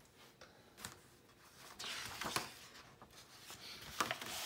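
Faint rustling of a picture book's paper page being turned, with soft brushing and a few light ticks of paper handling.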